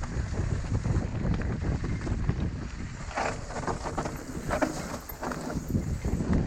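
Mountain bike riding down a dirt trail: a steady rumble of tyres and wind on the microphone, with rapid knocks and rattles as the bike goes over bumps, busiest in the middle.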